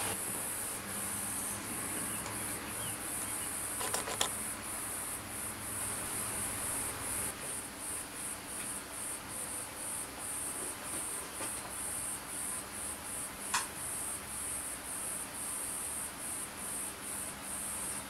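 Hornby Jouef HO-scale 141 TA model steam locomotive running slowly on analogue power: a high, hissing whirr from its motor and gearing that pulses about twice a second, over a low steady hum. Two sharp clicks, about four seconds in and again about thirteen seconds in.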